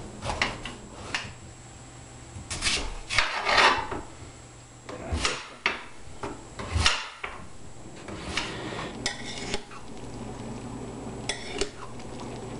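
Kitchen knife cutting through a winter squash on a cutting board: scraping of the blade through the rind, with irregular knocks and clicks against the board and utensils.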